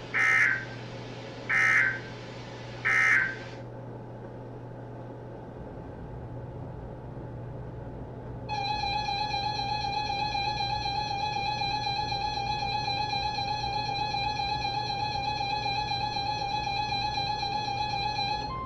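Three short squawking data bursts about a second apart, the end-of-message code of an EAS/NOAA Weather Radio alert. A few seconds of hiss follow, then the harsh, warbling two-tone Emergency Alert System attention signal holds steady for about ten seconds and cuts off just before the end.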